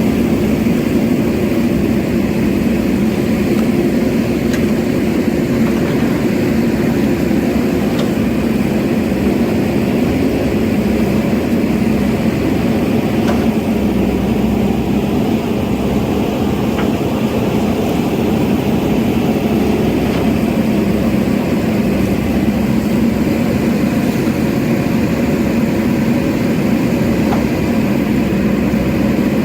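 JCB backhoe loader's diesel engine running at a steady speed, with a few faint knocks.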